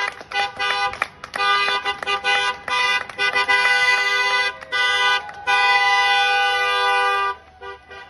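Horns honking at several pitches in a string of short toots, then one long held blast that cuts off near the end.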